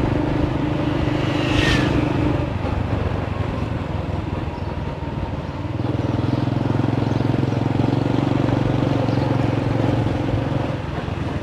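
Small motorcycle's engine running under way, heard from the pillion seat with road and wind noise; the engine note eases off a few seconds in and picks up again about halfway through.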